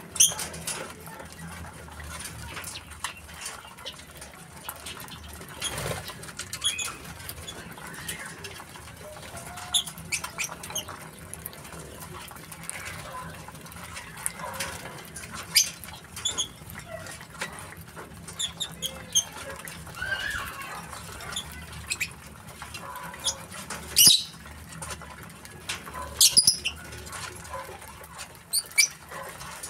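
A flock of lovebirds chattering: many short, sharp, high-pitched chirps and squeaks at irregular intervals, with a few louder calls standing out near the end.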